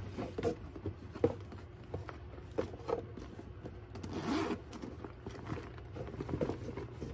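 Handling noise of a Louis Vuitton Speedy Bandoulière 25 handbag in Damier Ebène coated canvas being unfolded and shifted out of its fabric dust bag: scattered soft knocks, scrapes and rustles, with one longer scraping rustle about four seconds in.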